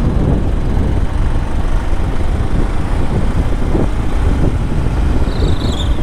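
Wind buffeting the microphone of a moving motorcycle over the steady drone of its engine and tyres. A faint high tone comes in briefly near the end.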